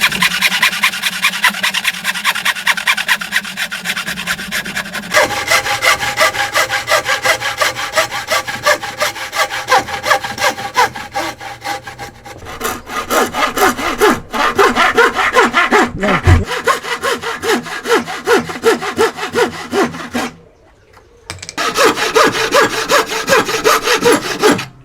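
Hand saw cutting through timber in quick, even back-and-forth strokes. The tone of the cut shifts a couple of times, and there is a brief pause about four-fifths of the way through before the sawing resumes.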